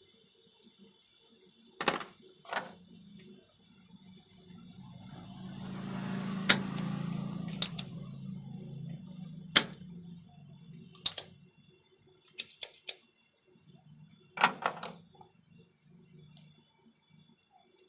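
Scattered sharp clicks and taps, like tools and small parts being handled on a workbench, around ten in all, some in quick pairs. A low hum swells up and fades away in the middle.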